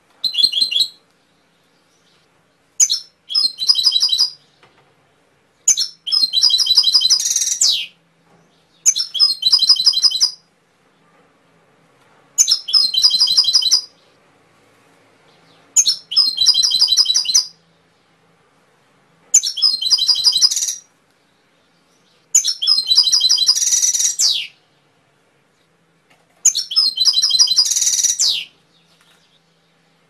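Domestic canary singing: about nine phrases of rapid, high trills, each one to two seconds long, separated by short pauses.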